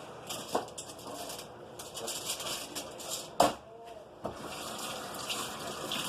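Water running from a kitchen tap into a sink, a steady hiss that fills out in the second half, with one sharp knock about three and a half seconds in.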